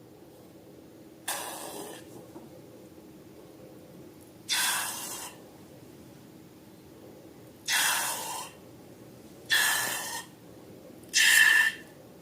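Five short hissing puffs of air, each under a second, a few seconds apart; the last is the loudest.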